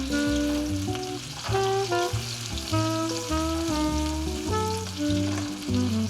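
Food frying and sizzling in a pan, with background music of a melody and bass line playing over it.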